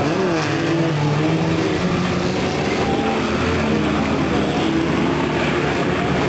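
Engines of several banger-racing cars running and revving together, their pitches rising and falling as they accelerate and ease off.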